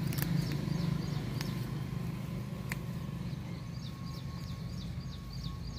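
Faint short high chirps, a small bird calling again and again, over a steady low hum, with a few sharp clicks as young Cassia tora (taakla) leaves are snapped off by hand.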